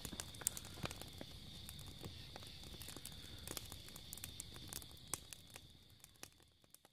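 Split-log campfire crackling and popping, with many sharp snaps over a low rumble of flame and a steady high trill of insects underneath. It fades out near the end.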